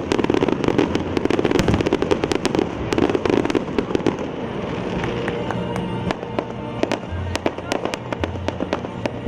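Fireworks going off in a dense run of sharp crackling pops, thickest in the first few seconds, with music playing underneath.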